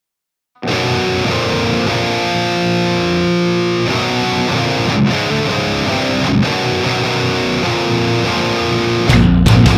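Background music: distorted electric guitar rock, starting abruptly about half a second in after a brief silence, with a louder hit near the end.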